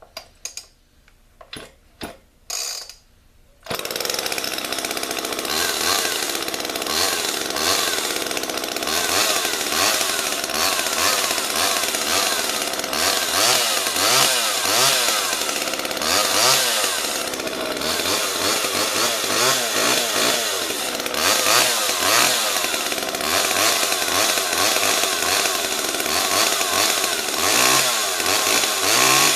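Homelite XL two-stroke chainsaw with a 14-inch bar, started by its recoil starter. After a few brief sounds, the engine catches abruptly about three and a half seconds in and runs, revved up and down repeatedly.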